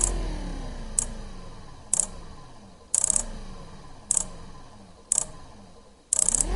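Electric motor struggling to start: about once a second a short rattling burst of clicks as it kicks, then its hum falls in pitch and fades as it slows down again.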